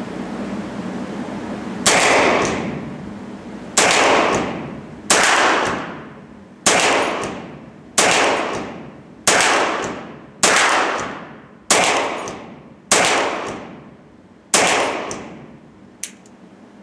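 Kel-Tec Sub-2000 .40 S&W semi-automatic carbine fired ten times in slow, aimed succession, a shot every second and a half or so, each report ringing out in the reverberation of an indoor range. A light click follows near the end.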